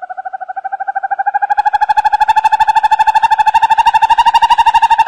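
An animal's call: a long, even trill at one steady pitch, about fifteen pulses a second, growing louder over the first two seconds.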